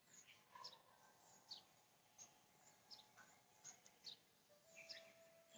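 Faint chirps of small birds: short, high notes about every half second, over an otherwise near-silent background.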